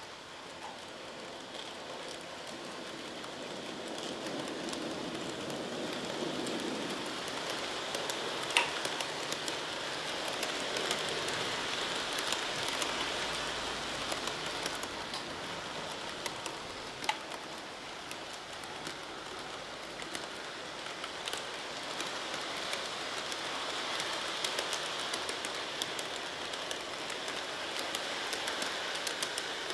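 Model freight train running on sectional track laid directly on the floor: a steady rattling hiss of metal wheels on rails with many small clicks at the rail joints. It grows louder over the first several seconds as the wagons come close.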